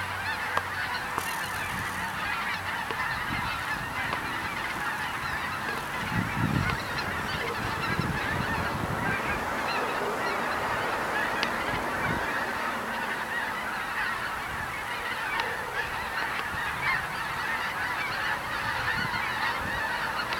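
A large skein of geese flying overhead, many birds honking at once in a dense, steady chorus. A few low bumps come about six seconds in.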